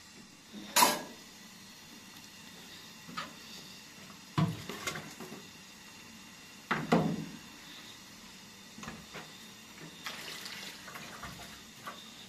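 Dishes and metal kitchenware being handled and set down, a string of separate clinks and knocks, the loudest about a second in and about seven seconds in, with water sloshing in a washing bowl.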